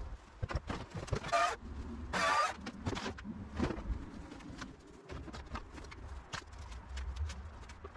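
Old weathered timber boards being wrenched apart and handled: two loud scraping creaks a second or two in, then scattered knocks and clatter of wood, over a steady low rumble.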